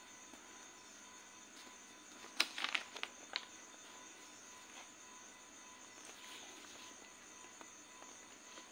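A sheet of notebook paper being handled and turned over by hand: a short cluster of crisp rustles and clicks about two and a half seconds in, over a faint steady hiss.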